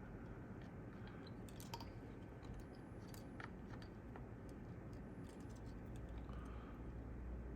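Scattered faint clicks and taps from hands and tools handling a circuit board and its capacitors. A steady low hum of an air-conditioning unit runs underneath.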